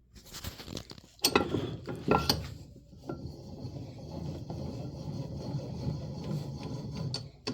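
Cast-iron bench vise being worked by hand: two loud metal clanks, then a steady rough rattle as the handle turns the screw and the jaw slides.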